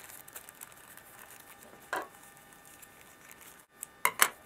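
Light rustling and handling of earbud headphones and their small plastic wrapping, with a short rustle about two seconds in. Near the end come two sharp knocks close together.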